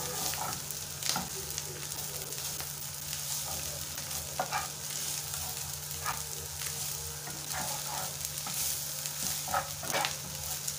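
Small dried omena fish sizzling as they fry in oil in a frying pan, with a metal spoon stirring them and scraping on the pan in short strokes every second or two.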